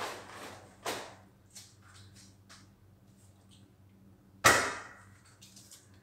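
Grocery packages being handled and set down on a wooden counter: a few knocks with short rustles, the loudest about four and a half seconds in, and a few light ticks between.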